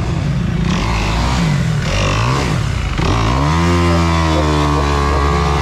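Dirt bike engine revving, the pitch rising and falling with the throttle, then revved up sharply about three seconds in and held at high revs.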